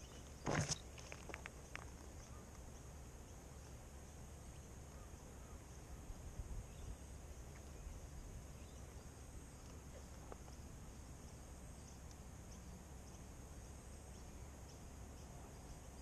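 Quiet outdoor ambience by the water: a steady low rumble with a faint, steady high hum. A single sharp knock comes about half a second in, followed by a few light clicks.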